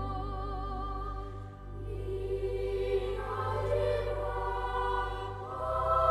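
Music with choral, opera-style singing: held notes with a wavering vibrato that change every second or two, over a steady low hum.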